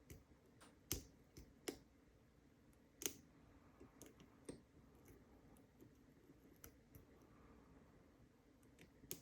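Faint, irregular clicks and small metallic ticks of a lock pick working the pin stacks of a six-pin Union padlock in a deep false set. A few sharper clicks come about a second in and again around three seconds in.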